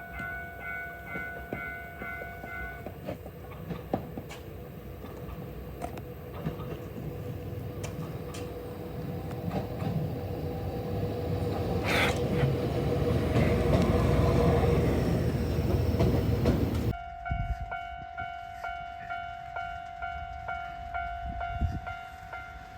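H100 'DECMO' diesel-electric railcar running through the station, its engine and wheel rumble building to a peak, with a short horn blast about halfway. Level crossing warning bells ding steadily over and over, at the start and again after a cut near the end.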